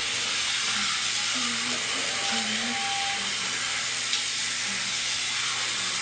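A steady hiss with faint low voices underneath, and a single click about four seconds in.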